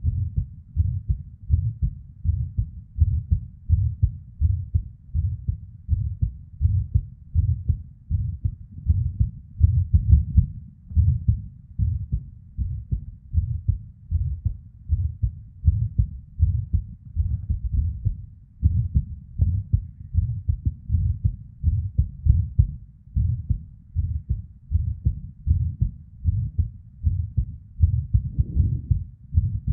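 A woman's heartbeat: low, repeated beats at roughly one a second with a murmur of blood flow between them. The rhythm is irregular, with premature (ectopic) beats.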